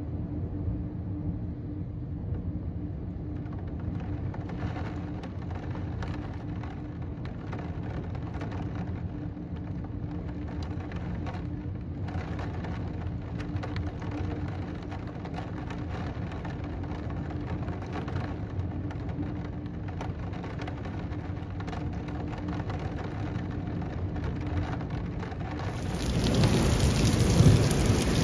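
Steady heavy rain with low thunder rumbling underneath, and a faint steady hum. About 26 seconds in, the storm grows suddenly much louder: a loud rush of rain and thunder.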